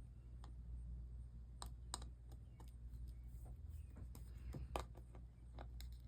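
Wire cutters snipping off the small wire tails of soldered jump rings, giving several sharp, separate clicks, with the cut bits pinging away. A steady low hum sits underneath.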